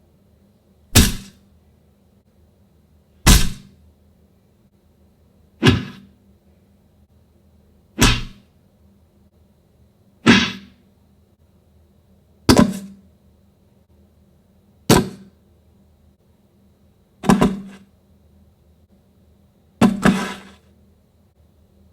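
A series of sharp hits or thwacks, nine in all, about one every two and a half seconds. Each dies away within about half a second, the last one doubled.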